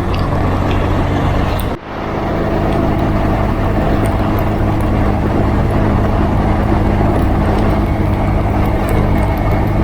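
Motorcycle engine running steadily at road speed under heavy wind rush on the microphone. The sound drops out for a moment about two seconds in and builds back.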